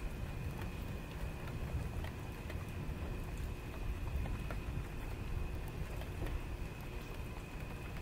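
Heavy rain falling steadily at night, with scattered drops ticking close by over a low, steady rumble.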